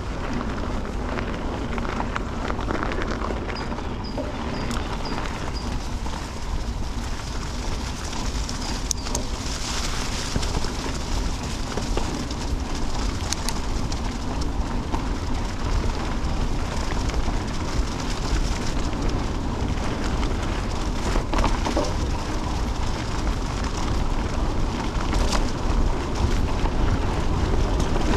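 Canyon Spectral CF 7 mountain bike ridden over a dirt trail covered in dead leaves: a steady rumble of its tubeless tyres and wind on the microphone, with scattered clicks and knocks from the bike. A short run of high chirps comes about four seconds in.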